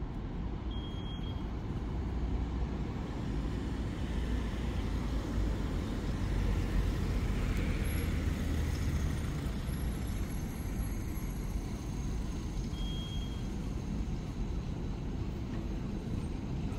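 Steady street traffic noise as a light-rail tram approaches slowly, with two short high beeps, one about a second in and one near the end.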